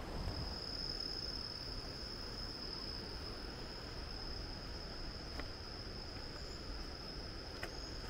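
An insect's steady, high-pitched, unbroken trill over a low, even background hiss, with two faint clicks late on.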